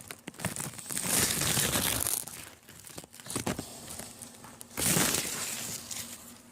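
Crinkly rustling of garden plant leaves being brushed or handled, in two bursts, each lasting about a second, the second near the end.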